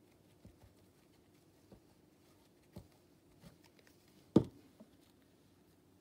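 Light taps and handling sounds on a tabletop, with one louder knock about four and a half seconds in as a plastic glue bottle is set down.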